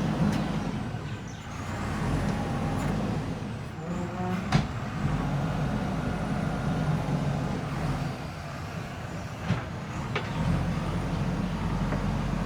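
A backhoe loader's diesel engine running under varying load as it digs and loads soil, with sharp metallic knocks: the loudest about four and a half seconds in, two smaller ones near the end.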